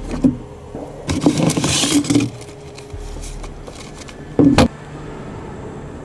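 Plastic roadside mailbox lid knocking open, a rustle of paper as letters are pulled out, then the lid knocking shut about four and a half seconds in.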